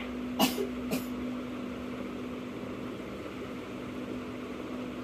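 Room air cooler running with a steady fan hum. Two short knocks sound in the first second.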